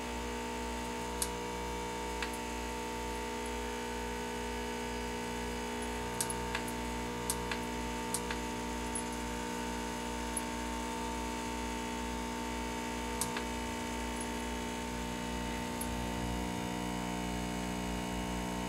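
BlackJack SolderWerks BK4050 hot air rework station running with a steady hum of several pitched tones, blowing hot air at 215 °C onto a laptop GPU in the final stage of a reflow. A few light clicks are scattered through it.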